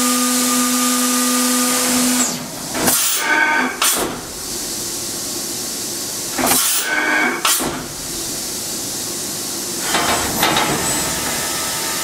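Fanuc Robodrill CNC drill-tap center: a steady spindle whine stops about two seconds in, then the axes make three rapid-traverse moves at full rapid, each a short loud burst of servo whine and rushing noise, over a steady hiss.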